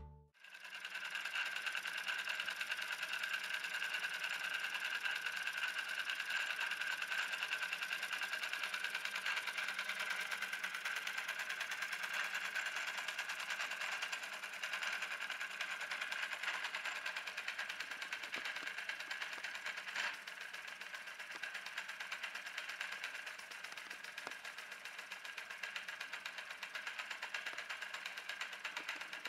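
Small twin live steam engine model running fast: a steady, rapid mechanical chatter with a high steady whine over it, and a single sharper click about two-thirds of the way through.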